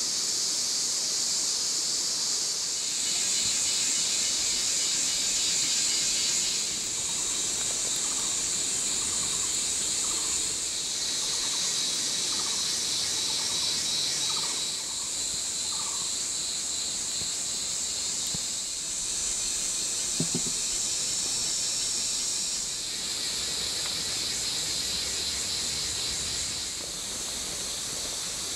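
Steady high-pitched chorus of insects that swells and eases in stretches. About eight seconds in comes a run of about ten short chirping calls, roughly one a second, and later a single click.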